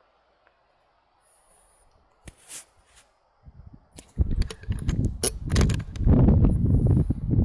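Close handling of shooting gear: a few sharp mechanical clicks, then from about four seconds in loud rubbing and knocking right at the microphone.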